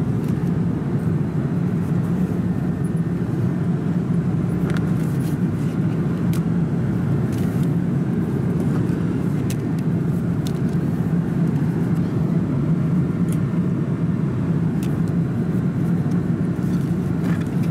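Steady cabin noise inside an Airbus A340-300 airliner: a constant low hum, with faint scattered ticks and rustles as a paper safety card and menu are handled in the seatback pocket.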